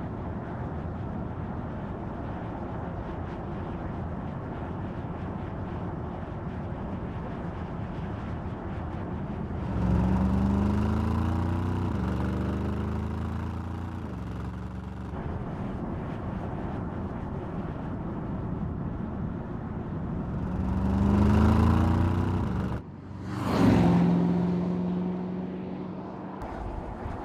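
Mercedes-AMG GT 63's 4.0-litre twin-turbo V8 driving along: steady cruising road noise, then the engine pulls hard twice, its note rising and stepping down with each upshift, with a short loud surge near the end.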